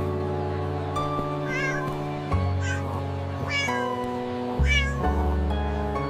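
A cat meowing four times in short, high-pitched calls, over soft background music with held low notes.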